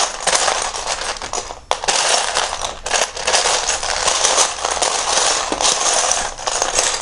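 Loose plastic Lego bricks clattering continuously as a hand rummages through a tub of them, searching for pieces.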